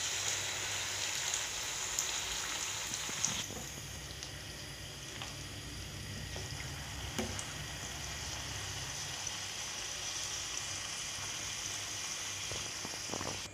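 Small rounds of semolina-and-flour dough for golgappa (pani puri) sizzling as they deep-fry in hot oil, a steady hiss that drops somewhat about three seconds in. A few faint clicks sound over it.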